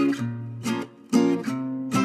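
Outro music of strummed plucked-string chords in a steady rhythm, about two strokes a second.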